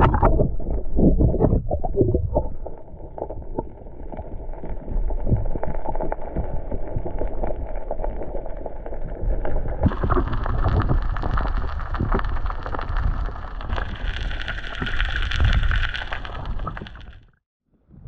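Muffled underwater rumbling and gurgling heard through a submerged camera, with a run of sharp pops and clicks at first. About ten seconds in it turns brighter and hissier, then it cuts out just before the end.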